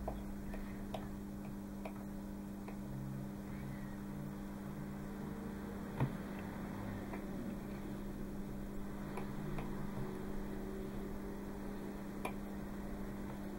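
Small metal clicks and taps as brass parts and a metal rod are handled on a wooden tabletop, with one sharper knock about six seconds in, over a steady low electrical hum.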